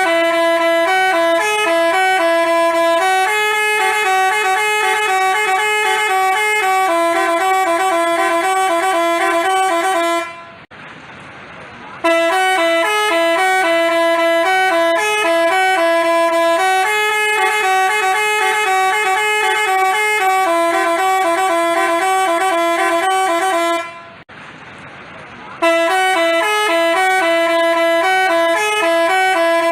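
Basuri multi-tone telolet bus horn playing its tune in stepping notes. The phrase repeats, breaking off briefly twice, about ten and twenty-four seconds in.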